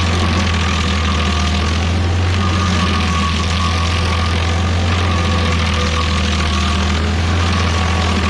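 Rayco RG50 stump grinder running steadily while its cutter wheel grinds into a stump: a constant deep engine hum under a rushing noise of chipping wood, with a faint whine that fades in and out.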